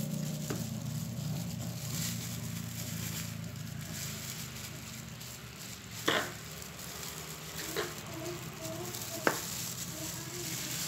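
Paintbrush bristles sweeping over the soil surface of a potted plant, a scratchy hiss, as loose debris is brushed off the growing medium. A few sharp clicks break in, the loudest about six seconds in and just after nine seconds.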